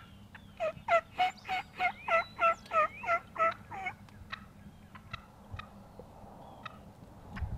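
A wild turkey yelping: a run of about eleven evenly spaced yelps, about three a second, lasting some three seconds.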